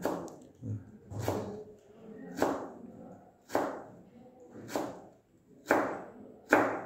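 Chef's knife chopping through a vegetable onto a plastic cutting board, cutting julienne strips: a sharp knock about once a second, some seven strokes in all.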